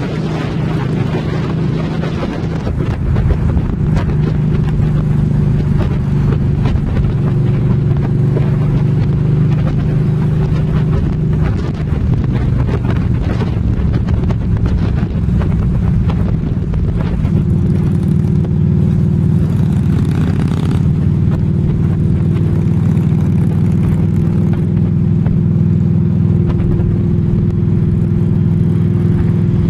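Trike engine running steadily at cruising speed, heard from the pillion seat over the rush of wind on the microphone. The engine note dips briefly about twelve seconds in and settles again.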